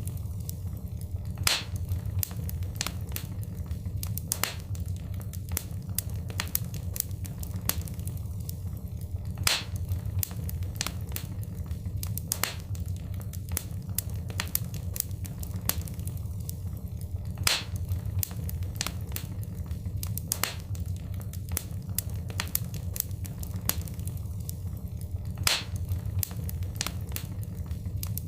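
Fireplace fire crackling, with frequent sharp pops over a steady low rumble. A louder run of pops comes back about every eight seconds, as if the same stretch of fire sound is looping.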